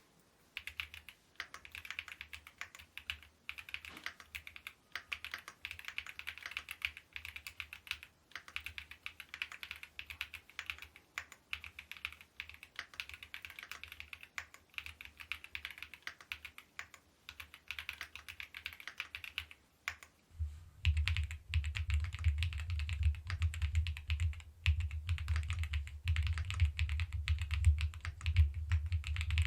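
Epomaker EK75 mechanical keyboard being typed on rapidly, a dense stream of key clacks. About twenty seconds in the typing turns louder and deeper.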